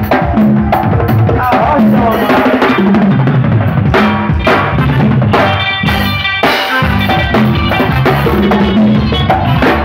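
Live band music driven by a drum kit and congas, with a steady beat of kick, snare and hand-drum hits over pitched instruments.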